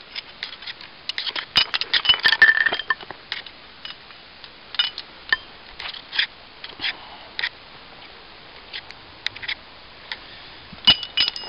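Small metal objects clinking and jangling together in a hand, a series of sharp ringing chinks. They are thickest about two seconds in, then come scattered, with one louder chink near the end.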